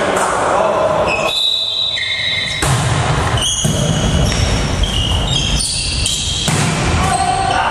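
Indoor volleyball rally: the ball being struck and players' shoes squeaking on the sports hall floor, with many short high-pitched squeaks and hall echo.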